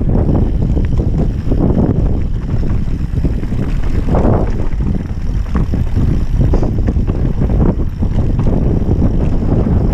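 Wind buffeting an action camera's microphone as a Banshee Spitfire mountain bike rides down a rocky dirt trail. The tyres rumble over the ground, with a steady run of small knocks and rattles from the bike.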